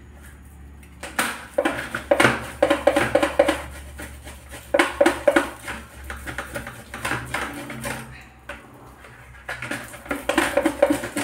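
Ripe palmyra palm fruit being rubbed by hand against a metal box grater to work out its pulp and juice: runs of quick scraping strokes with a slight metallic ring, broken by short pauses.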